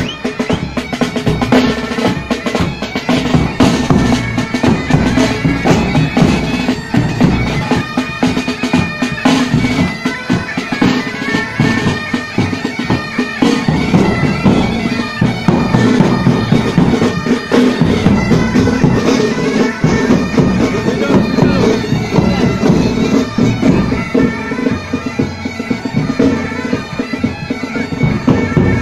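Military pipe band playing: bagpipes sounding a melody over their steady drones, with side drums and a bass drum beating along throughout.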